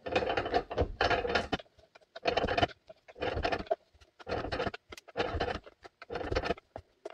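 Rhythmic scraping or rubbing strokes from hand work in a shop, about one a second, each lasting about half a second.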